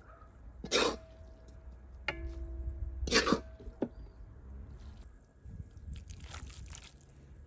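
A perforated metal skimmer knocking and scraping against metal cooking pots as filling is scooped and transferred. There are several sharp knocks, one about two seconds in leaving a brief metallic ring, and a patch of scraping near the end.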